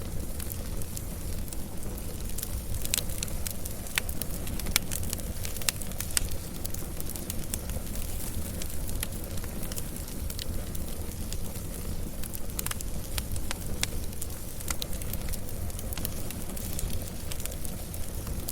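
Wood fire crackling: irregular sharp pops and snaps over a steady low rumble of burning flames.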